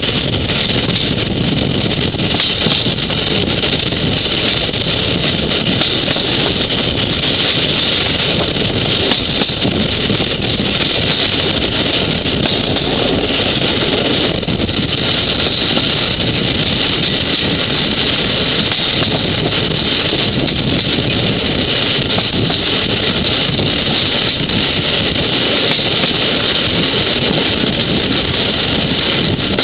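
Steady, even running noise of a moving vehicle.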